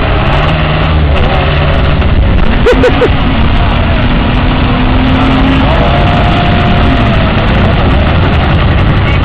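Engines of a mud-bogging 4x4 and farm tractors running in a mud pit, a steady heavy rumble, with distant voices calling out over it.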